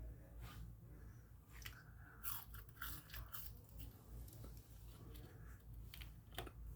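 A person biting and chewing crunchy food close to the microphone, with irregular sharp crunches.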